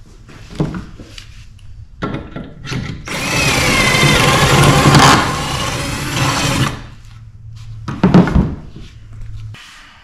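Cordless drill running into the end of a wooden board for about three and a half seconds, starting about three seconds in with a short rising whine as it spins up. Scattered knocks of wood and tools come before and after, the sharpest about eight seconds in.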